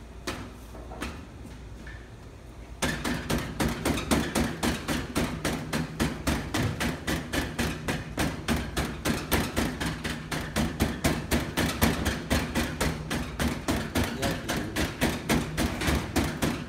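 Bread dough patted flat by hand on a stainless-steel worktable, pressing the air out of it: quick, even slaps, about five a second, starting about three seconds in.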